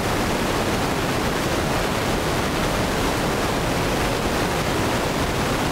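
Loud, steady static hiss spread evenly over all pitches, the noise of a blank or damaged stretch of recording, with no voice in it.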